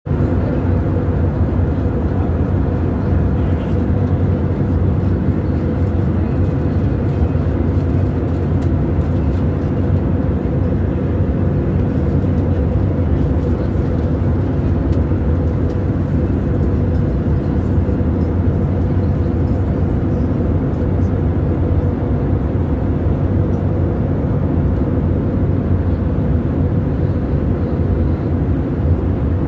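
Steady cabin drone of an Airbus A320neo-family jet airliner in cruise: engine and airflow noise heard from a window seat beside the engine. It is deep and even, with a faint steady hum above it.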